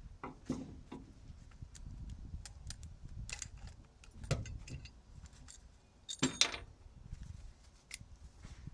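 Metal clinking and knocking as tools work the cast-aluminium casing off a microwave's electric motor: scattered sharp clicks, with a louder ringing metallic clank about six seconds in.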